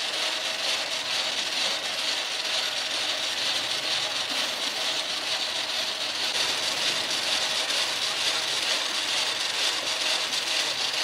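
Chain-and-sprocket drive of a motorised rotisserie grill rattling steadily as it turns the skewers.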